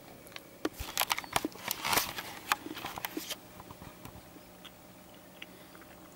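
Close crunching and clicking from someone chewing a piece of rice-based chocolate, in a cluster of sharp crackles from about half a second to three and a half seconds in, then quiet.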